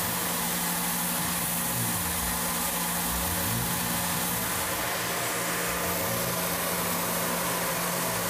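Tormach PCNC mill spindle running steadily while a small end mill takes a light finishing pass of a few ten-thousandths around a fixture pocket. There is a constant hum with a steady hiss above it.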